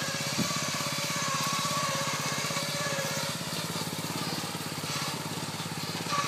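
Modified riding lawn mower's engine running steadily as the mower is driven through brush, with a short knock about half a second in.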